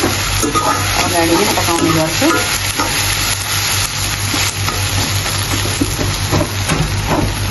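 Sliced onions and whole spices sizzling in hot oil in a steel kadai while a metal ladle stirs them, scraping and knocking against the pan many times. A steady low hum runs underneath.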